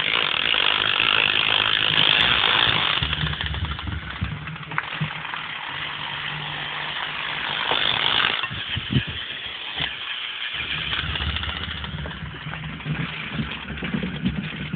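Small electric motors and plastic gears of a motorized K'NEX toy car whirring steadily as it drives, with a low hum underneath and a few short knocks. The whirr is loudest in the first few seconds and drops out briefly about ten and a half seconds in.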